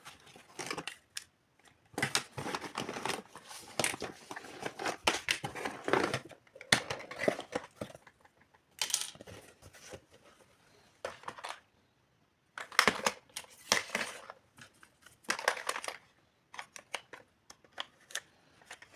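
Miniature toy kitchen pieces being handled and set down: irregular clusters of small clicks, taps and rustles with short pauses between them.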